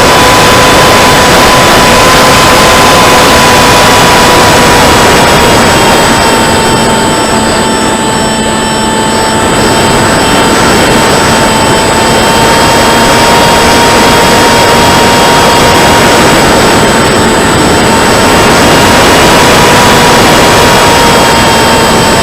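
Onboard audio from an RC flying wing: wind rushing hard over the microphone, with the steady whine of its 2216 2000kv brushless motor spinning a 7x5 propeller. The whine sags a little in pitch and the wind eases briefly about a third of the way in.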